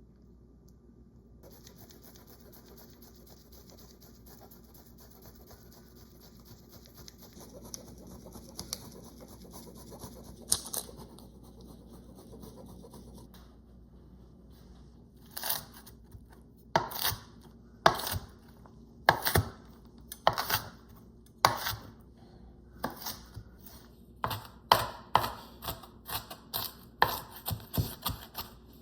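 Knife chopping sandwich fillings on a cutting board: faint handling at first, then sharp knocks from about halfway in, about one a second and quickening to about two a second near the end.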